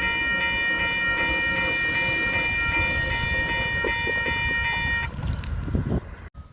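A train at close range: a steady, high warning tone pulsing about three times a second stops abruptly about five seconds in. Low rumble and clanks of the train follow, then the sound cuts out briefly near the end.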